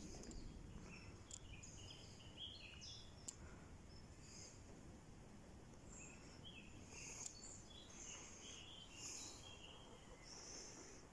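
Near silence: faint outdoor ambience with scattered distant bird chirps and a few light clicks.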